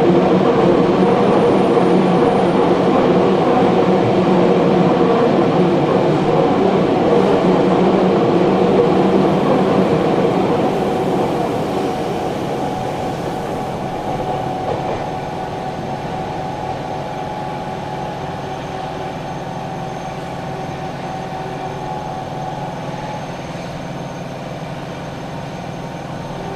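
Running sound inside a Nagoya Municipal Subway 6050-series train car, with wheels on rail and traction motors loud at speed. From about ten seconds in it grows quieter as the train eases off, and a thin steady whine carries on through the second half.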